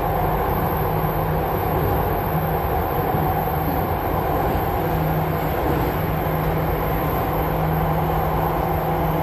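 Jakarta MRT train running between stations, heard inside the carriage: a steady rumble of wheels on rail with a steady low hum.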